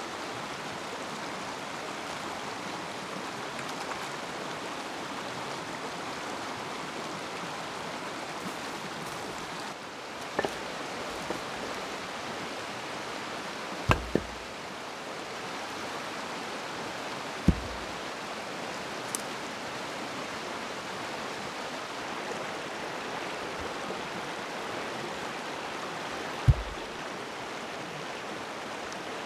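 Mountain stream running steadily with a constant rush of water. A few sharp, short thumps sound over it at intervals, two of them in quick succession near the middle.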